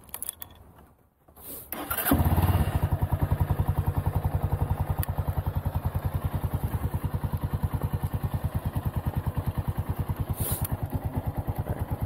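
Lifan KP Mini 150's single-cylinder engine starts about two seconds in and settles straight into a steady idle with an even pulsing beat.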